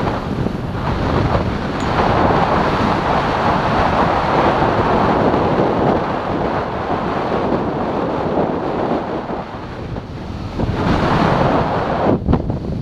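Wind rushing over the microphone of a camera carried by a skier running downhill, mixed with the hiss of skis sliding over the packed snow.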